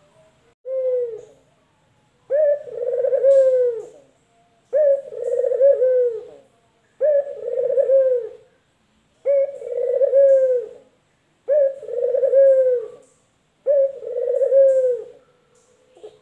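Male collared doves (puter) cooing: one short coo about half a second in, then a steady series of six long coos, one about every two seconds.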